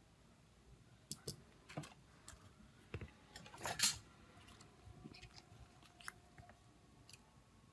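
Gloved hands handling a phone's circuit board and mid-frame: a few faint clicks and taps, with a louder scraping rustle just under four seconds in.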